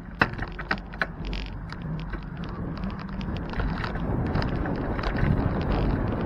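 Wind buffeting the microphone of a bicycle-mounted camera, growing louder as the bike picks up speed, with frequent irregular clicks and rattles as the bike and camera mount jolt over rough pavement.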